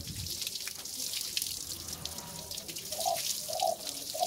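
Water spraying from a garden hose onto a wet dog's coat and a wooden table: a steady hiss with spattering drips. Near the end come a few short mid-pitched tones about half a second apart.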